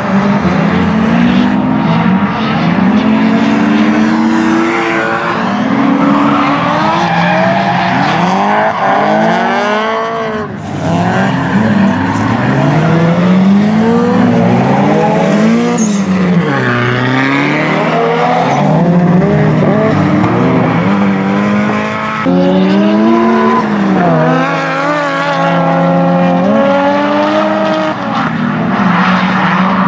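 Two drift cars sliding in tandem, their engines revving up and down again and again as the drivers work the throttle, with tyres squealing and skidding under them.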